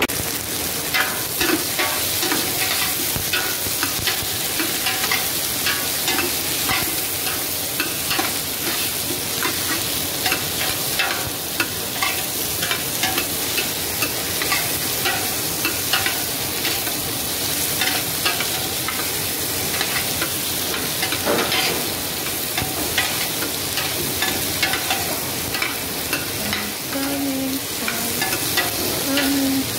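Carrots, potatoes and onion sizzling in hot oil in a stainless steel pot, with frequent short scrapes and clicks of a spatula stirring them against the pot.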